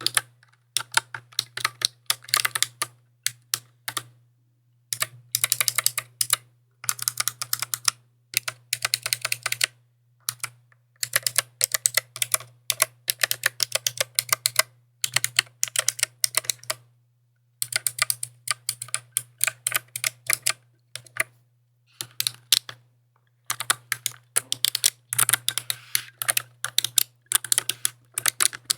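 Typing on a mechanical keyboard: runs of rapid clicking keystrokes, each run a second or two long, with short pauses between them, over a faint steady low hum.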